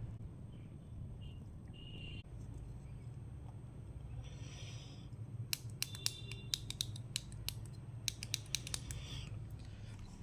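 Small sharp clicks and light scraping from handling tools and small parts on a workbench, the clicks bunched in the second half, over a steady low hum.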